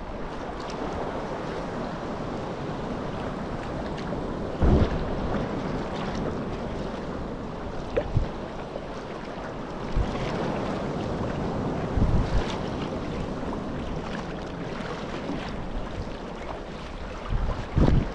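Sea kayak being paddled through choppy sea: a steady wash of water and wind, broken by a few short, low thumps every few seconds.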